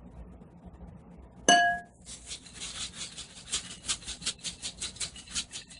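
A single sharp, ringing clink about a second and a half in, then a fast, steady rattle of candy sprinkles being shaken from their container onto a frosted bath bomb, about six shakes a second.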